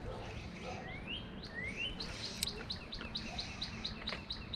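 A songbird singing: two rising whistles, then a quick run of repeated high notes, about five a second, over a low steady background rush. There are a couple of sharp clicks, the louder one about two and a half seconds in.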